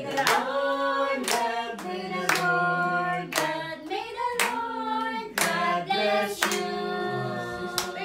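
A small group of adults and children singing a birthday song together, clapping along in time about once a second.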